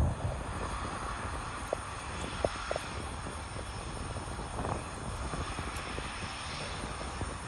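Lockheed C-130J Super Hercules's four turboprop engines running as it taxis: a steady rumble with a faint high whine. A few short chirps come about two to three seconds in.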